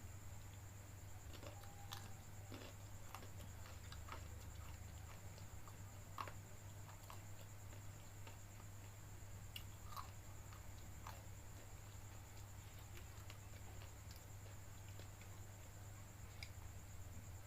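A person eating fried noodles, with faint chewing and scattered small clicks, over a steady low hum and a thin high whine.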